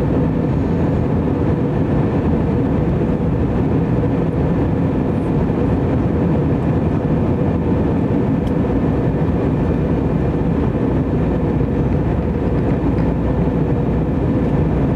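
Cabin noise inside an Airbus A321 in flight: a steady drone of the engines and airflow, heavy in the low end with a faint steady tone on top.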